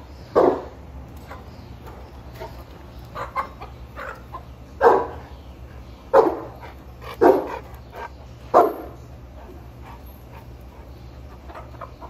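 Boerboel dog barking: five short, loud barks at uneven intervals, one just after the start and four between about five and nine seconds in. Hens cluck softly between the barks.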